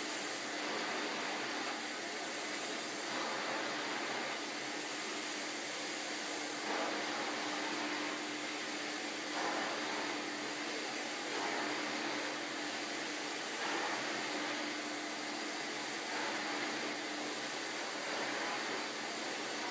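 A 1985 Kerstar KV15/1 commercial canister vacuum runs steadily with a constant motor hum. The rushing air brightens and dims every second or two as the floor tool is pushed back and forth over carpet.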